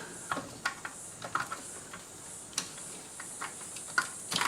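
Scattered light clicks and taps of hands working a graphics card loose from its slot inside a computer case, over a steady high hiss.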